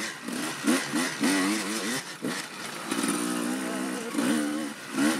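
Dirt bike engine on a trail ride, its pitch rising and falling with the throttle and easing off briefly twice, over a steady hiss of wind noise.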